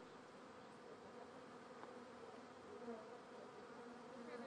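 A swarm of honeybees buzzing: a faint, steady hum, with now and then a single bee flying close by, its pitch sliding.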